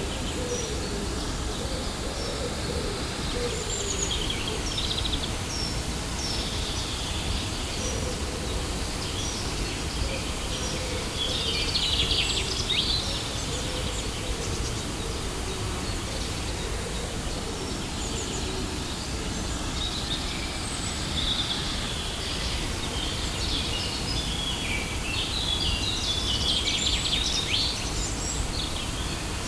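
Steady rushing noise of a waterfall, with small birds chirping over it in bursts, busiest about twelve seconds in and again through the last third.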